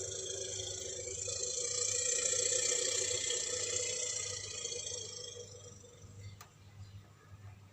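Elephant-like call made as a sound effect for Palaeoloxodon namadicus: one long, harsh call that swells to its loudest a couple of seconds in and fades away after about five seconds, with a single click near the end.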